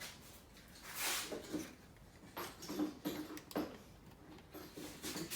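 Stanley knife blade digging and scraping into wood, in a few short, scattered scrapes.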